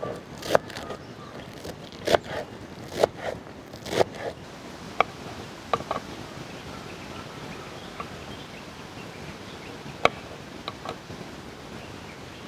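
Kitchen knife knocking against a wooden cutting board while cutting herbs and halving small limes. There are about a dozen short, sharp knocks, closer together in the first few seconds and sparser and thinner after that, over a low steady background.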